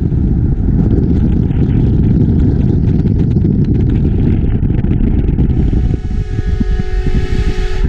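Wind and road noise from a moving car. About six seconds in, a car-mounted train horn sounds a held chord of several steady tones for about two seconds, then cuts off sharply.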